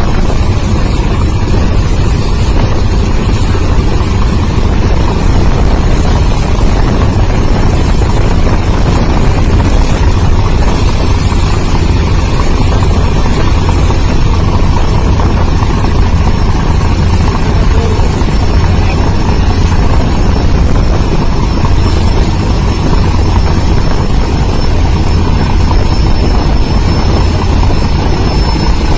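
Loud, steady, low engine drone of large river passenger launches running at speed, mixed with the rush of churning water and wind. The drone runs unbroken, heaviest in the low bass.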